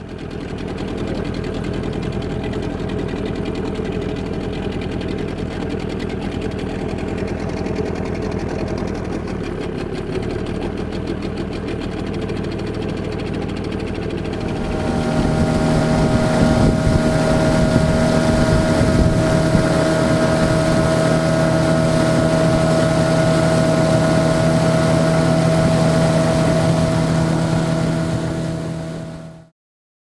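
Motorboat engine running steadily while the boat moves along the river. About halfway it becomes louder, with a stronger steady hum, as the boat runs faster. The sound stops suddenly near the end.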